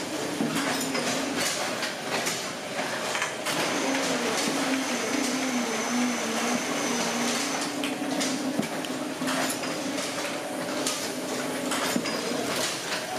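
Paper tube-making machinery running, drawing kraft paper off a large roll: a steady mechanical hum that wavers slightly in pitch, under irregular clicks and clatter.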